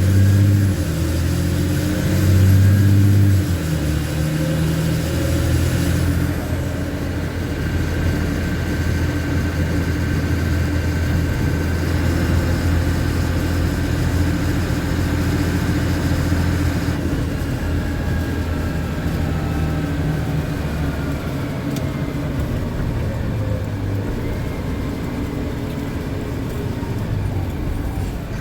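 LMTV military truck's diesel engine running under way, louder and stepping in pitch over the first few seconds, then running steadily.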